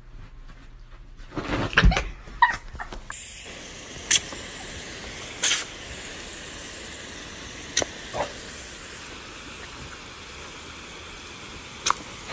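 Garden hose spray nozzle sending out a steady hissing jet of water, which starts abruptly about three seconds in, with a few short sharp sounds over it. Before that comes a brief cluster of loud, sudden sounds.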